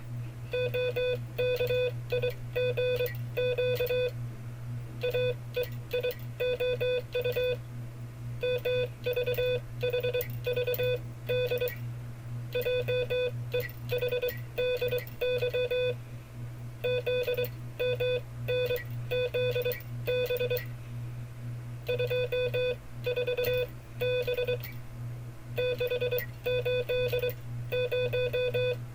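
Morse code sent as a keyed beeping tone, spelling out five-character cipher groups. Each group lasts about three seconds, with a pause of about a second between groups. A steady low hum runs underneath.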